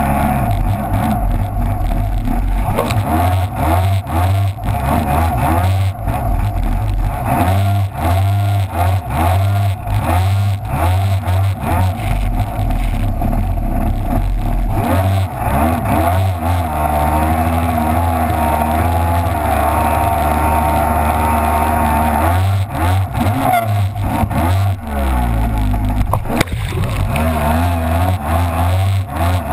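Kawasaki X2 jet ski's two-stroke engine running hard, rising and falling in pitch as the throttle is worked through breaking surf, with water splashing against the hull.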